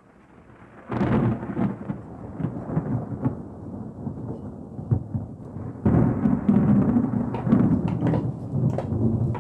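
Thunder with rain. A loud roll breaks about a second in and rumbles away, and a second roll comes about six seconds in.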